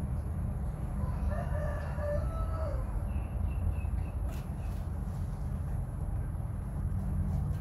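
A rooster crowing once, about a second in, over a steady low rumble.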